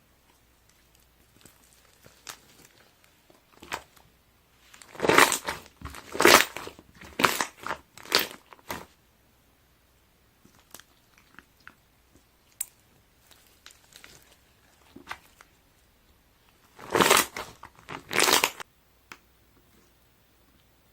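Slime being pressed and squeezed so that trapped air bubbles pop and crackle: a run of about four loud crackling squeezes around five seconds in, then two more near the end, with faint small pops between.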